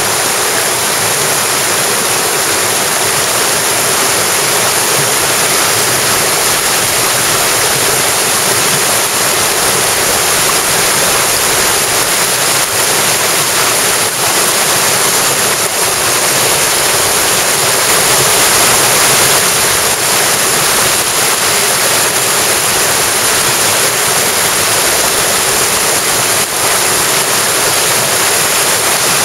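Mountain stream rushing: a loud, steady rush of flowing water.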